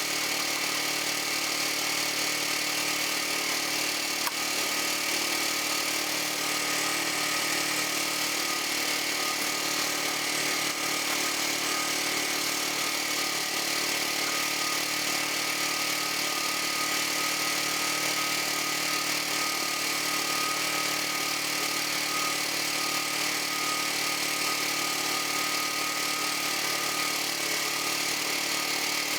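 Frontier OS31 portable band sawmill running steadily, its engine under load as the band blade cuts along the length of an ash log.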